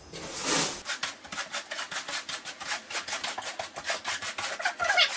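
Broom bristles sweeping clay cat litter granules across a bare hardwood floor: one long scratchy stroke, then a quick run of short scratchy strokes, several a second.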